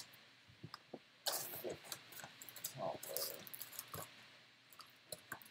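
Faint rummaging and handling noises: irregular rustles, taps and clicks as someone searches through supplies, with a louder rustle about a second in.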